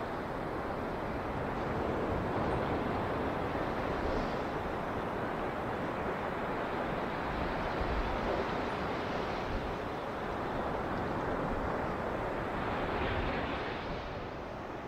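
Sea surf: waves breaking and washing up the beach in a steady rush, with one wave surging louder a little before the end.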